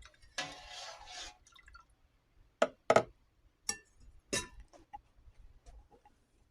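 Kitchenware being handled: a short scraping noise, then four sharp knocks and clinks of dishes and utensils.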